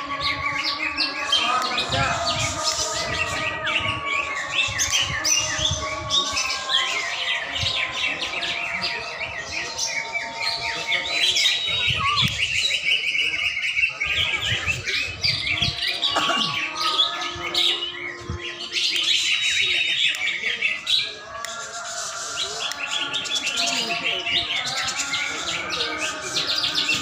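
Several caged cucak ijo (green leafbirds) singing at once: a dense, unbroken stream of rapid overlapping chirps and whistled phrases from many birds competing with each other.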